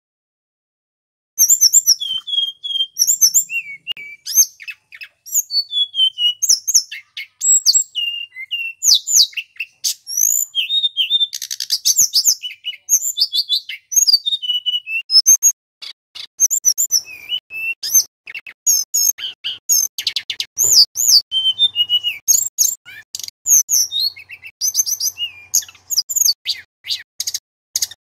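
Male tledekan gunung (a blue flycatcher) singing a fast, varied song of whistled notes, glides and trills in quick phrases with short gaps, starting about a second in.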